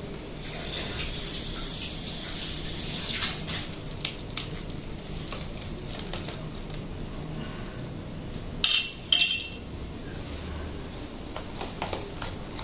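A meat cleaver cutting into a durian's spiky husk, with scraping and crackling for the first few seconds and a few knocks. About nine seconds in come two sharp metallic clanks as the cleaver is laid down on the tile floor.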